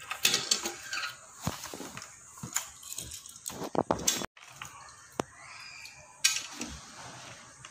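Clear plastic toy packaging crinkling and clicking as it is handled, with small die-cast Hot Wheels cars knocked and set down on a glass tabletop: a scatter of short clicks and rustles.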